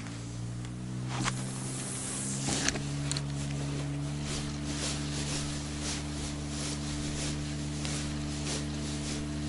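Boat outboard motor speeding up over the first two or three seconds, then running at a steady pitch.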